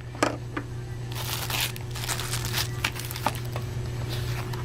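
Plastic packaging crinkling and small plastic parts clicking as unboxed camera accessories are handled, with the crinkling densest from about one second in to nearly three seconds. A steady low hum runs underneath.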